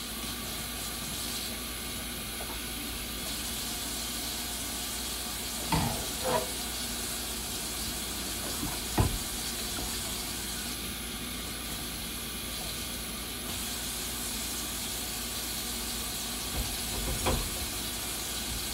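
Kitchen tap water running steadily into a sink, with a few short knocks about six, nine and seventeen seconds in.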